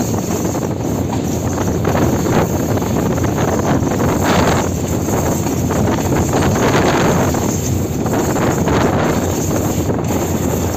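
Diesel locomotive running light over curved mountain track: a steady rumble of wheels on the rails with irregular clacks, and wind buffeting the microphone.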